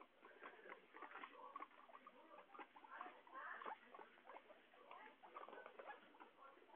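Guinea pigs rustling and munching in a pile of fresh greens: a steady run of quick, faint crackles and clicks.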